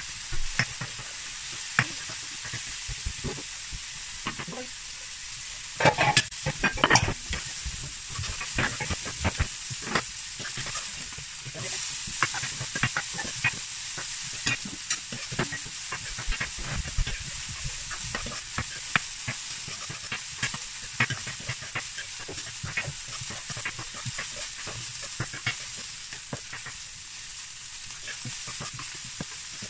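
Diced vegetables sizzling in a frying pan while being stirred with a spatula, the steady hiss of frying broken by frequent scraping and tapping clicks. There are a few louder knocks about six to seven seconds in.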